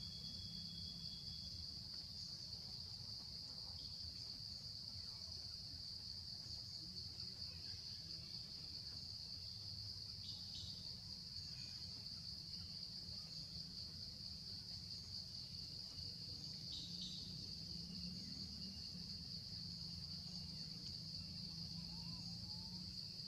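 A steady, high-pitched insect chorus, with a low rumble underneath and two faint short calls, about ten and seventeen seconds in.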